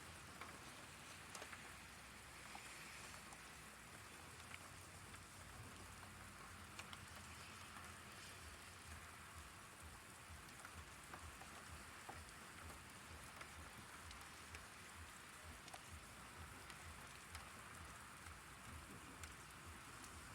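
Faint, steady rain falling, with many small scattered drop ticks.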